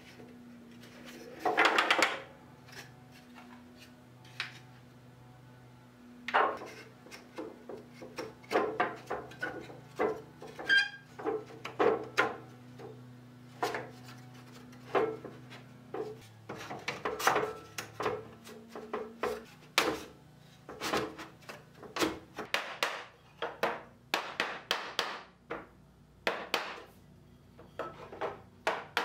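Thin slotted pine boards clacking and knocking against one another as they are handled and slotted together into a grid, in irregular sharp knocks. Near the end, a rubber mallet taps the boards home.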